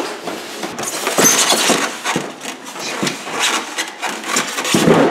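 Irregular scraping and rubbing with scattered knocks: cardboard and foam packaging of a large RC helicopter being handled.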